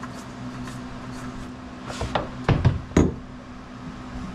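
Five or so sharp knocks and clunks within about a second, starting about two seconds in, as oil filters and tools are handled during an oil change, over a steady low hum.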